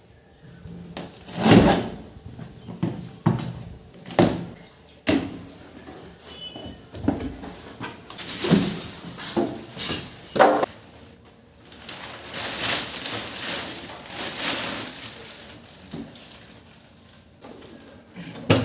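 Packing box being handled and opened: irregular knocks, thumps and scrapes, with longer rustling scrapes about twelve to fifteen seconds in.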